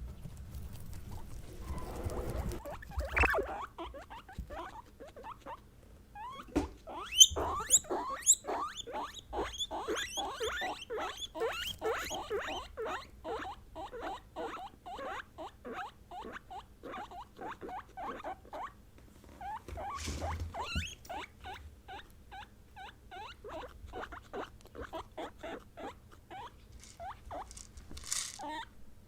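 Guinea pigs squeaking in a long rapid series, about three to four short calls a second, with a few higher rising squeals early in the run. A rustling comes before the calls start.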